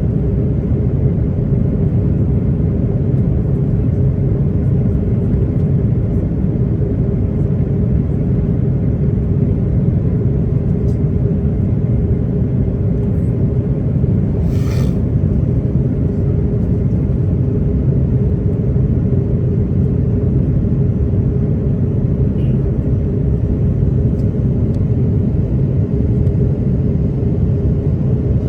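Steady low rumble of engine and airflow noise inside the cabin of an Airbus A330-300 with Pratt & Whitney PW4000 engines, on approach, with a steady hum running through it. A brief sharp click or rattle a little past halfway.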